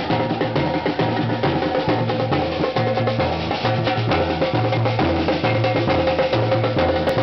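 A batucada samba percussion group playing a dense, steady rhythm: snare drums and a stick-played repinique rattling over the low, alternating strokes of surdo bass drums.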